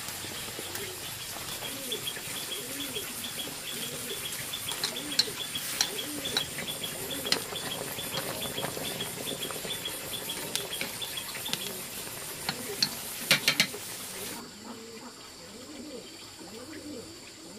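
Water boiling hard in a metal wok of noodles, with chopsticks knocking against the pan a few times and a quick rattle of knocks near the end. Doves coo in the background. The bubbling stops abruptly about fourteen seconds in, leaving the cooing.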